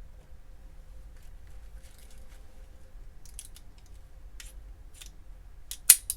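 Small clicks and light rubbing from a Smith & Wesson Model 36 snub-nose revolver being handled, then one sharp, loud click near the end and a smaller click just after it.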